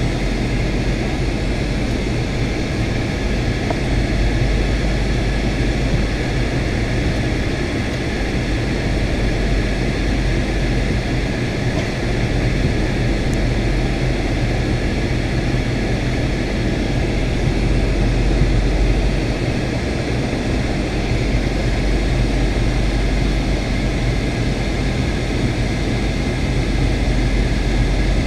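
Steady drone of a Boeing 757-200's engines and rushing airflow heard inside the passenger cabin, a constant low hum and broad noise with no changes.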